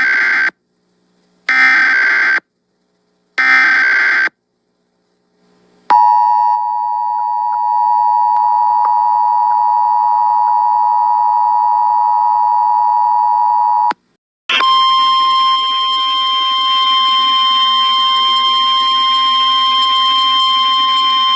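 Emergency Alert System tones on FM radio. Three short screechy digital header bursts come first, then about six seconds in the two-note EAS attention signal sounds steadily for about eight seconds. After a brief break a second, single steady tone with hiss follows.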